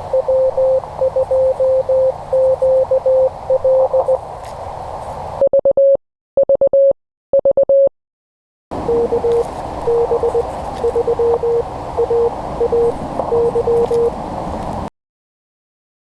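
Morse code (CW) from a ham radio transceiver: a single beeping tone keyed in dots and dashes over a hiss of band noise. About five seconds in, a few seconds of the same kind of keyed tone sound clean with no hiss behind it, then Morse resumes over the noise at a slightly lower pitch and stops about a second before the end.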